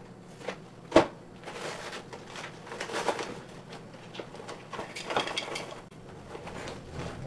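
Scattered knocks, clicks and light rustling, with one sharp knock about a second in.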